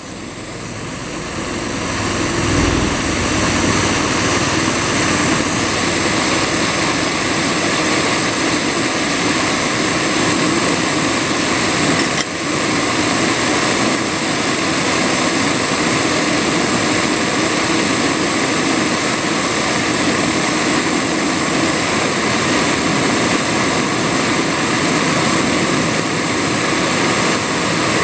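Kovea canister gas stove burning at full flame under a pot, the burner giving a steady rushing hiss. It grows louder over the first two seconds, then holds even, with one brief click about twelve seconds in.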